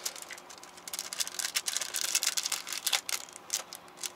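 Plastic packaging of a car air freshener crinkling and crackling in irregular bursts as it is handled and worked at to be opened.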